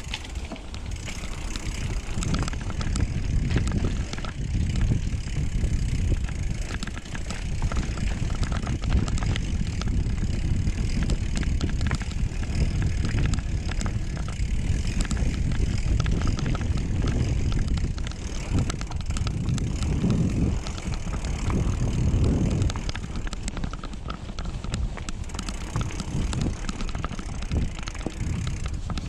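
Mountain bike riding down a dirt trail: a steady low rumble of tyres and rushing air on the microphone, with rapid fine rattling clicks from the bike over rough ground.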